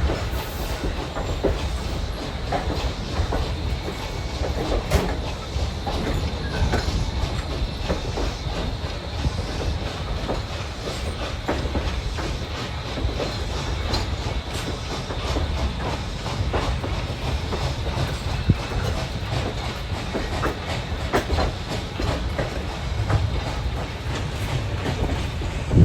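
Excursion train rolling along the track: a steady low rumble from the wheels and cars, with irregular clicks and clacks from the rails.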